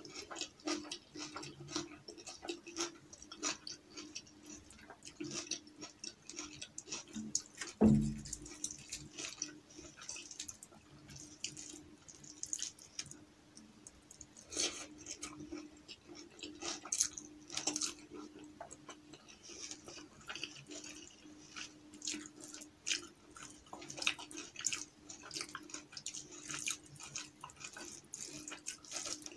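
Close-up eating sounds: wet squelches and clicks of fingers mixing rice and lentil dal, with chewing and lip smacks, over a faint steady hum. A single low thump about eight seconds in is the loudest sound.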